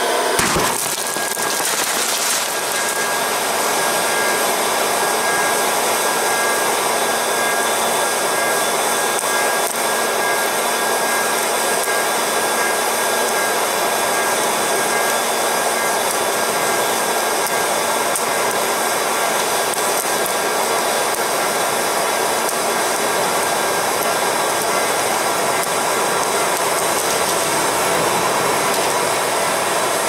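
Electric hot-air popcorn popper running, its fan blowing steadily.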